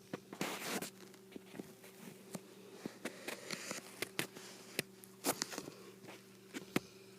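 Bullmastiff snoring in its sleep: breathy snorts every couple of seconds, with many sharp clicks and smacks between them, over a steady low hum.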